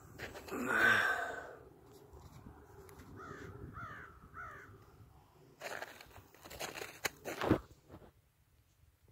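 Snow crunching and rustling as a leashed dog digs and rolls in it, with a crow cawing three times in quick succession midway. A few sharper rustles and knocks come near the end.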